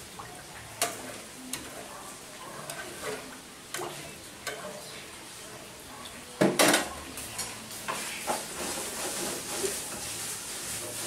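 Metal ladle clinking and scraping against an aluminium pot in short sharp ticks as the pot is stirred, with one louder clunk a little past halfway. Near the end a steady high sizzle of frying takes over.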